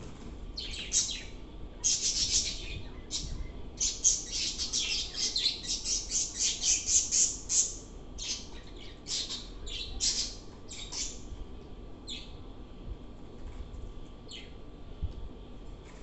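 Caged budgerigars chirping and chattering in quick runs of high chirps, busiest through the middle and thinning to a few single chirps near the end.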